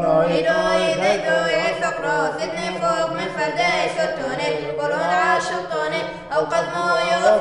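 Chant sung a cappella: a winding melody line over a steady, low held drone note.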